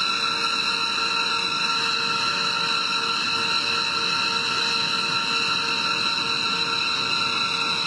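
Jet engines running steadily: a constant high-pitched whine of several fixed tones over a rushing hiss, with no change in pitch or loudness.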